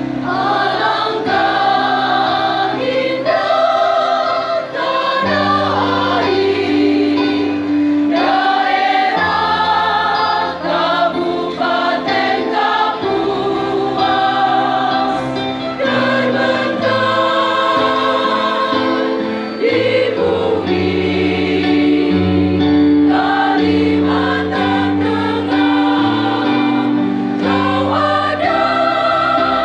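Large choir, mostly women's voices, singing a hymn in full voice, phrase after phrase without a break.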